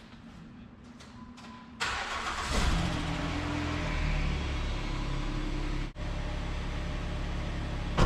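A Jeep's engine starting about two seconds in and then running at a steady idle.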